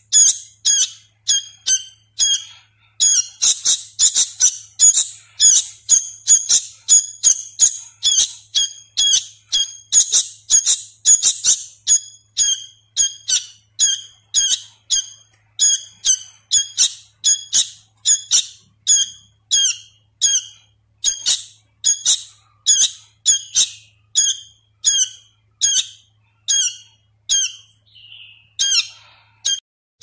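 Young sooty-headed bulbul (kutilang), a hand-reared chick still learning its song, calling a short high note over and over, about two calls a second. The calls are louder in the first half.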